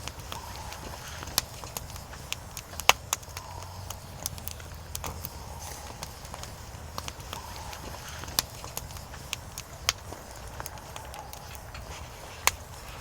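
Firewood burning, crackling with irregular sharp pops over a low steady rumble; the loudest pop comes about three seconds in.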